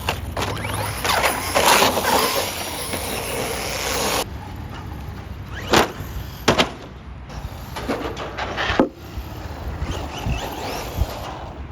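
Radio-controlled car driven hard over rough ground: a loud rush of tyre and dirt noise that cuts off abruptly about four seconds in, then a few sharp knocks, with the motor's whine rising and falling.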